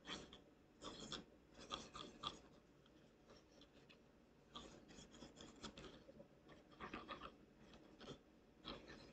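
Faint scratching and tapping of a toothpick being dragged and dabbed through wet paint on a wooden board. The sounds come in short bursts with pauses between them.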